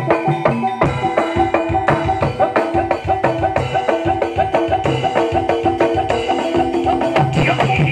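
Live traditional Javanese gamelan music: a fast, steady run of drum and struck-percussion beats over ringing tuned metal tones, with a higher wavering line coming in near the end.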